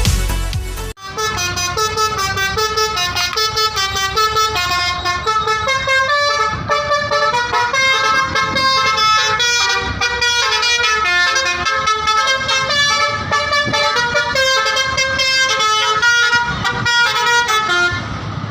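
Indonesian bus 'telolet' multi-tone air horn playing a tune, its notes stepping up and down in quick succession. It starts about a second in and runs for about seventeen seconds before stopping near the end.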